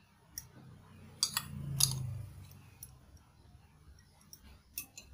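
Metal chopsticks clicking and clinking against ceramic bowls while cucumber strips are laid on the noodles: scattered light taps, the loudest pair and single click about one to two seconds in.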